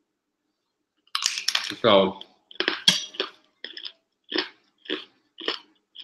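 A metal fork clinking and scraping on a plate, a brief murmur, then chewing in short regular bursts about twice a second.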